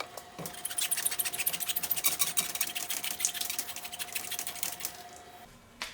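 Hand saw cutting through a worn rubber scooter tire on its rim, a dense rasping of the teeth biting into the rubber that fades out near the end. A faint steady hum sits beneath it.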